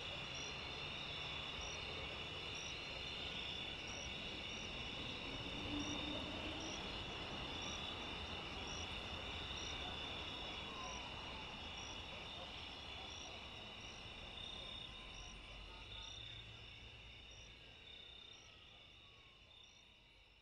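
Night chorus of crickets: a steady high trill with a separate chirp repeating about every three-quarters of a second, over a low background rumble. It fades out over the last several seconds.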